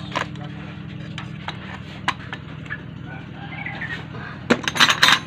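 Metal clinks of hand tools and dismantled brake booster parts being handled on the ground, with a quick run of louder clatter near the end, over a steady low hum.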